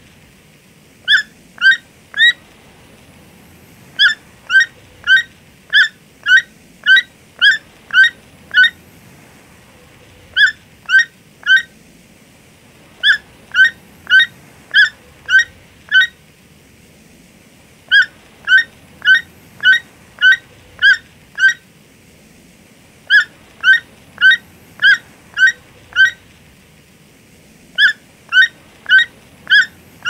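Toucan calling: short, slightly rising notes repeated about two a second in bouts of three to nine, with pauses of a second or two between bouts, over a faint steady background hiss.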